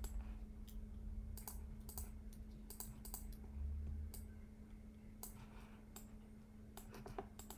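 Irregular clicks and taps from a computer keyboard and mouse while node values are edited, over a faint steady electrical hum.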